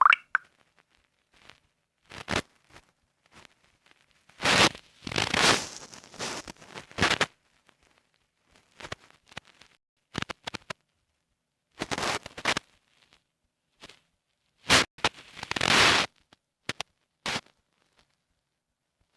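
Irregular rustling and rubbing, handling noise close to the microphone, with scattered short clicks. The two longest bursts come a few seconds in and again about three quarters of the way through.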